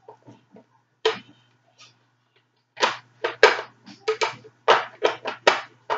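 Hard plastic clicks and knocks from handling and fitting the parts of a Nerf Hail-Fire blaster: a few sparse clicks at first, then a quick run of loud clicks and rattles from about three seconds in.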